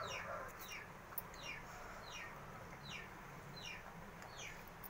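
A bird chirping: short high chirps, each sliding down in pitch, repeated about twice a second.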